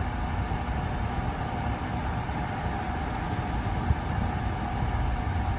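12,000 BTU portable air conditioner running on its fan alone, a steady whir over a low rumble. Its compressor has not yet kicked in, a long delay the owner puts down to an electrical problem in the unit.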